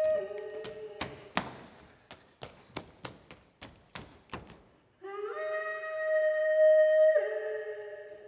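Stage music on a wind instrument: a long held note drops at the start. Then comes a string of about ten sharp knocks, roughly three a second. The instrument returns about five seconds in with a long note that rises, holds, steps down near the end and fades.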